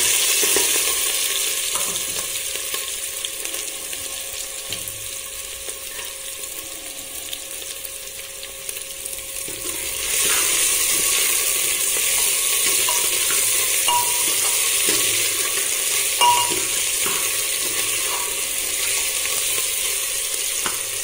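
Chopped onion, potato and green chilli sizzling in hot oil in a pressure cooker, with a metal ladle stirring and now and then clicking against the pot. The sizzle eases slightly over the first ten seconds, then turns louder again.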